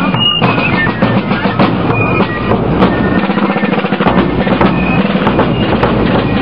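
Marching fife-and-drum band: rope-tensioned field drums playing rapid rolls and a marching beat, with a few high fife notes over them at times.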